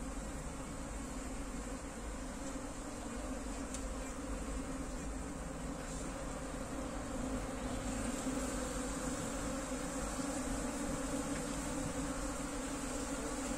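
Honey bees buzzing in a steady hum at an opened wall hive as comb is pulled out of it. The hum grows a little louder about halfway through.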